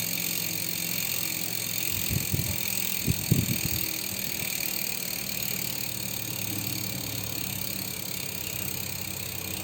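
Shimano MT401 Micro Spline rear hub freewheeling, its freehub pawls clicking so fast they run together into a steady buzz as the wheel coasts. A few low knocks come between about two and four seconds in.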